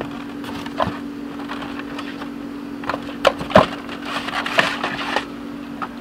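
Handling noise on a wooden deck as an all-plastic airsoft AK is picked up out of its box: scattered knocks and clatter, the loudest about three and a half seconds in, followed by a busier run of clatter.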